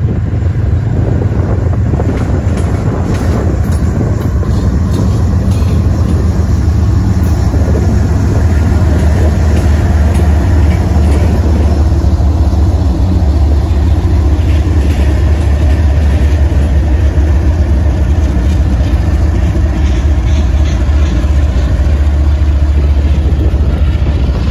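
Two diesel freight locomotives passing close by, their engines running with a loud, deep rumble that grows somewhat louder as the second unit comes level.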